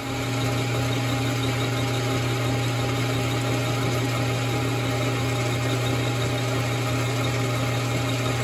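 Metal lathe running steadily, its spindle driving an end mill that takes a light milling cut in a metal block clamped in a lathe milling attachment's vise. A constant machine hum with no breaks or changes.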